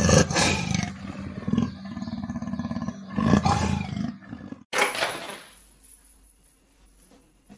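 A big cat roaring, two long pulsing roars, the second about three seconds in, then a shorter sound that fades into faint room noise.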